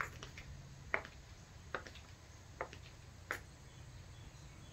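Footsteps on a concrete floor: five faint, sharp taps at an even walking pace, a little under a second apart, over a low steady rumble.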